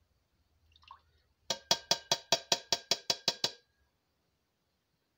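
An emptied evaporated-milk can tapped rapidly against the rim of a stoneware slow-cooker crock to shake out the last drips: about a dozen quick ringing knocks, about five a second, lasting some two seconds.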